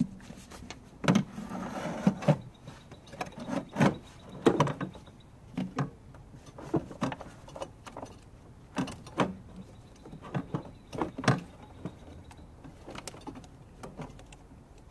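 Hands handling plastic hoses, clips and wiring in a car's engine bay: irregular clicks, taps and light rattles, a dozen or so spread unevenly through the stretch.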